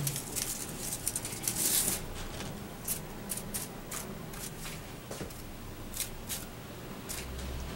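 Craft-paper strips rustling and crinkling as hands lay, turn and press a layered paper mandala flat, denser in the first couple of seconds, then scattered light ticks of paper against paper.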